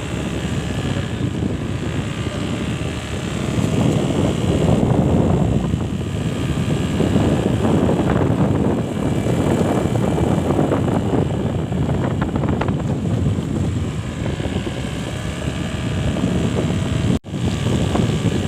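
Riding on a motorbike: wind buffeting the microphone over the bike's engine noise, a dense rumble. The sound cuts out for an instant near the end.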